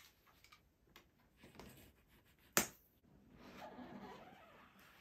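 Unboxing sounds from a cardboard gun box: soft ticks of a craft knife working on the tape, one sharp click about halfway, then a soft rubbing of cardboard as the lid is pushed open.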